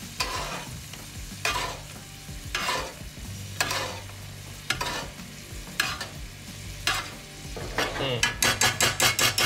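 Spoon basting a breaded chicken cutlet in a cast-iron skillet of sizzling pan sauce: a scoop-and-pour splash about once a second, then a quick run of spoon strokes in the pan near the end.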